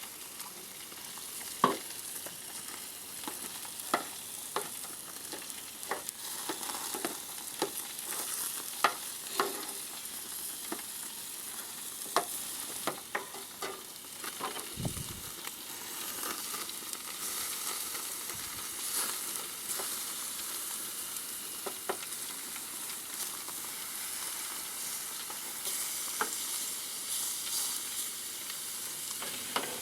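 Mushrooms sizzling as they fry in a pan, with scattered sharp clicks of a utensil stirring them against the pan.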